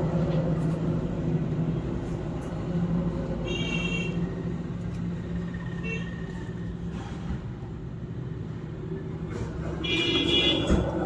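Engine running with a steady low hum. Brief high-pitched tones sound twice, about 4 and 10 seconds in.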